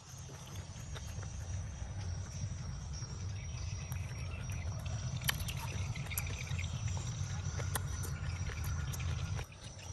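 Outdoor ambience: a steady high insect trill over a steady low rumble, with scattered sharp clicks. The rumble drops away near the end.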